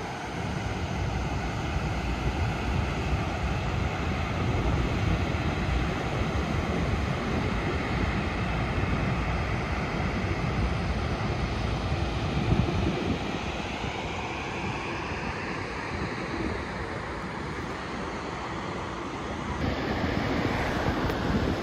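Steady rush of water pouring over the spillway of a dam that is full to capacity, under heavy wind buffeting the microphone.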